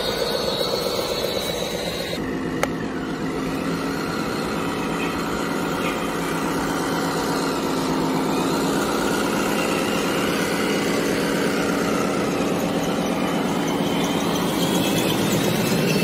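Radio-controlled excavator's electric motors and plastic gearboxes whining as it tracks and works, the whine rising and falling in pitch over a steady mechanical hum, with one sharp click about two and a half seconds in.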